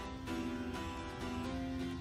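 Background music: a melody of short, clear instrumental notes changing every fraction of a second.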